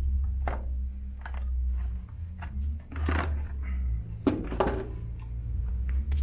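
Plastic covers of an elliptical trainer being handled and pulled off: scattered clicks and knocks, with louder clatters about three seconds in and again just past four seconds, over a steady low rumble.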